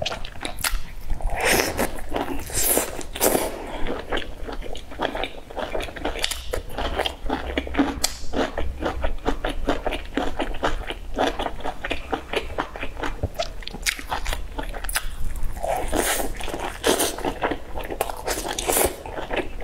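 Chewing and biting into a folded flatbread stuffed with cabbage and mushrooms: rapid, crackly wet mouth sounds that come thick and fast, with louder bites about a second and a half in and again near the end.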